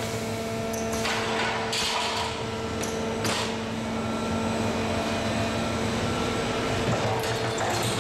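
Bumper rollforming line's bending and unloading station running: a steady machine hum, broken by a few short noisy bursts of hiss and clatter as the unloading arm and chute move and steel bumper profiles are handled.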